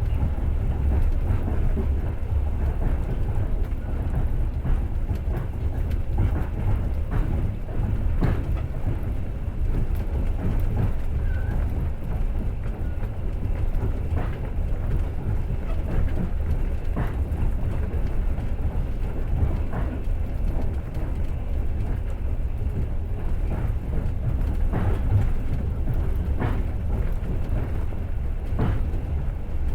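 Passenger train running at speed, heard from inside the carriage: a steady low rumble with scattered sharp knocks of the wheels clattering over rail joints every few seconds.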